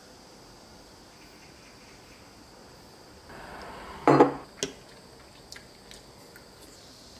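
A ceramic-looking mug set down on a tabletop with a single solid knock about four seconds in, followed by a lighter click and a few faint ticks. A faint steady high hiss runs underneath.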